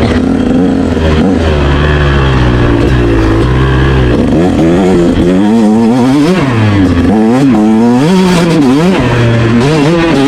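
Motorcycle engine running hard, its pitch rising and falling again and again with the throttle.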